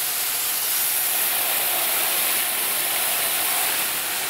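Garden hose spray nozzle jetting water onto a car tire and wheel, rinsing off degreaser: a steady hiss of spray and splashing water.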